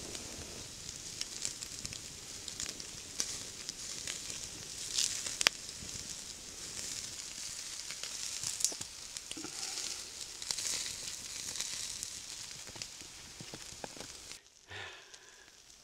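Sausages sizzling on a wire grill grate over a wood campfire, with small crackles and a few sharp clicks. The sound cuts off abruptly near the end.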